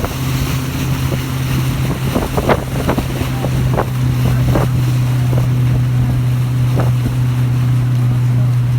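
Boat motor running steadily at one pitch, with wind rushing on the microphone and a few short sharp knocks or splashes in the first half.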